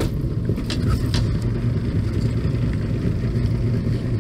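Fishing boat's engine running steadily, a low rumble, with a couple of light clicks about half a second and a second in.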